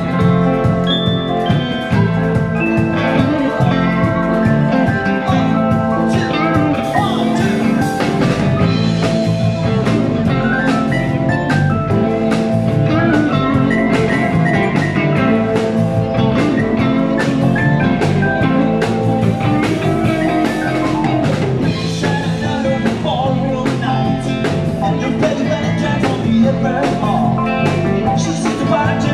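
Live amplified band playing: electric guitars, electric bass and a drum kit keeping a steady beat, with keyboard, all running without a break.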